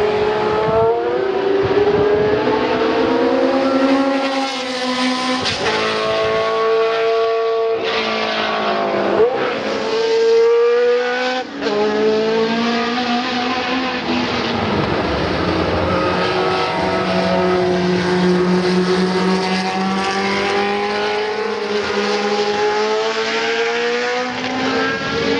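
The 3-litre Ford-Cosworth DFV V8 of a 1975 March 751 Formula 1 car running hard on track. Its revs repeatedly climb and fall back as it changes gear, with a steadier stretch between.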